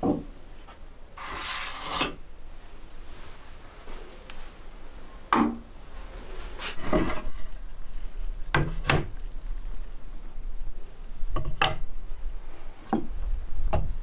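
Wooden kitchenware being handled and set down on wooden surfaces: a short scraping rub about a second in, then a series of separate knocks and clacks as a wooden bowl, cutting board and knife are placed on the sill and table.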